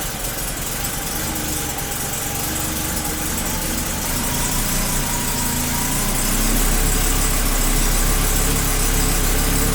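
Audi 90 quattro's inline five-cylinder engine idling. Its speed rises about four to six seconds in and holds there, as the throttle is opened while the low idle speed is being set.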